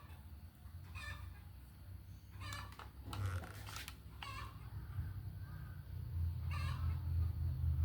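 Chickens clucking, with short calls repeated about four times, over a low steady hum. A brief noisy rustle comes in the middle.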